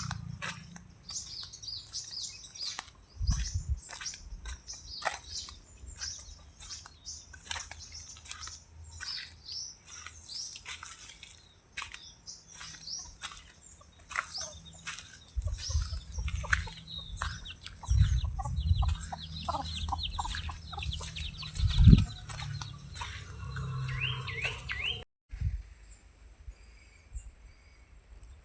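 Birds chirping and calling rapidly, many short high calls one after another, thinning out after about 25 seconds. Low thumps come and go underneath.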